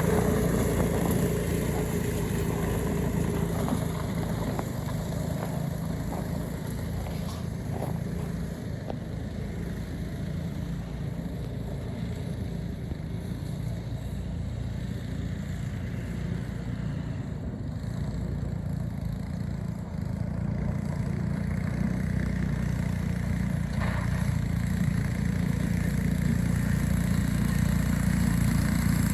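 Small engine of a homemade tracked snow sled running steadily. It fades somewhat in the middle and grows louder again toward the end. The owners say it still needs a little carburetor work.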